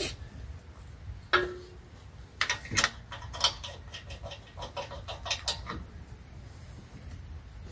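Lug nuts being put onto a car wheel's studs by hand: scattered small metallic clicks and clinks, one sharper ringing clink about a second and a half in, then clusters of quick clicks around three and five seconds.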